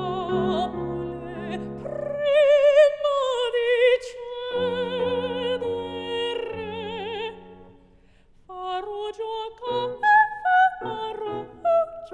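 Female classical singer singing an operatic aria in Italian with wide vibrato over piano accompaniment. Long held notes give way to a brief pause about eight seconds in, followed by short, detached notes.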